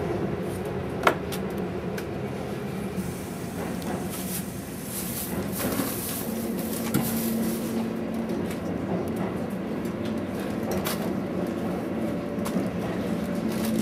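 Keihan 8000 series electric train running, heard from inside the passenger car: a steady rumble of wheels on rail with a few sharp clicks and rattles, and a faint low hum about halfway through.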